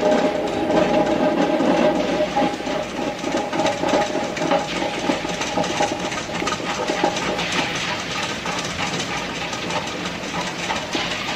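Tabletop stone wet grinder running with a steady whir as its stone rollers turn in the steel drum, while soaked urad dal is tipped in, giving many small clicks of grains against the drum and stones.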